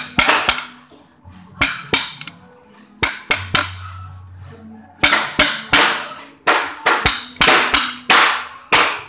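Wooden mallet striking a steel chisel as it cuts into a bamboo pole to form a joint. A run of sharp knocks comes in small groups at first, then after a pause midway it settles to a steady beat of about two strikes a second.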